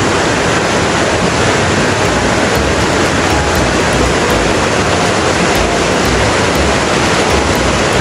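River water rushing over rocks and small cascades: a loud, steady wash of water.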